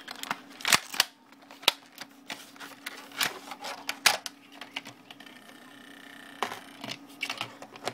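Clear plastic packaging insert clicking and crackling as it is handled and pried apart to free a phone case. The sharp clicks come at irregular intervals, ease off for a moment a little past halfway, then pick up again.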